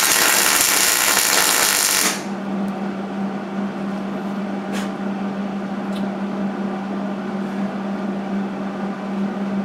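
MIG welder laying a plug weld on sheet-metal body panel, a steady loud crackle that stops about two seconds in. A steady low hum carries on after the arc stops.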